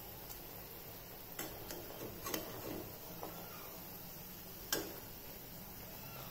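A stainless steel skimmer spoon clicking against a nonstick kadai as fried eggs are turned in the gravy: a few sharp separate clicks, the loudest near the end, over the faint steady sizzle of the simmering gravy.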